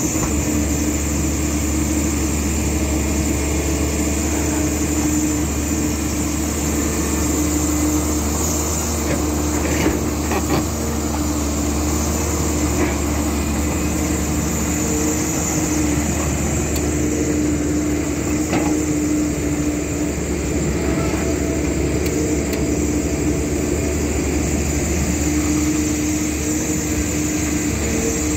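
Caterpillar hydraulic excavator's diesel engine running steadily, with a couple of short knocks about ten seconds in.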